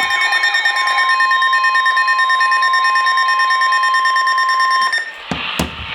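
Electronic alert tones of an Emergency Alert System broadcast: a steady, rapidly pulsing alarm tone that cuts off suddenly about five seconds in, followed by a few clicks.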